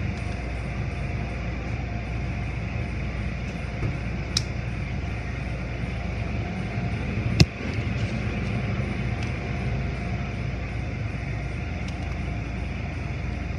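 Tunnel car wash machinery running steadily: a low hum with a faint whine. A small click comes about four seconds in and a loud sharp knock about halfway through.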